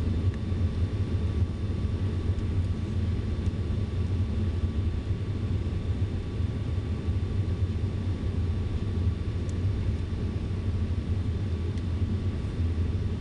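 Steady low drone of an airliner's engines and rushing air, heard inside the passenger cabin, with a faint steady whine above it.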